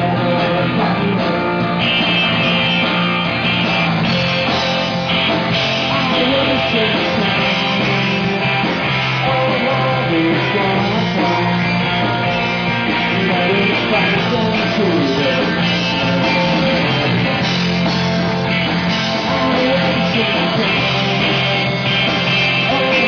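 Live rock band playing loud and without a break, with guitars.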